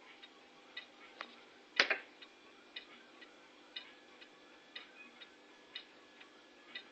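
Faint, even ticking from an idle fruit machine waiting between games, about a pair of ticks every second, with one louder tick about two seconds in.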